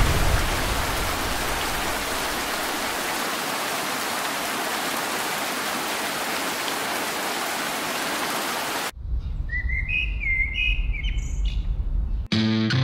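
Steady hiss of heavy rain falling, which cuts off suddenly about nine seconds in. A few short bird chirps follow over a low rumble, and music starts near the end.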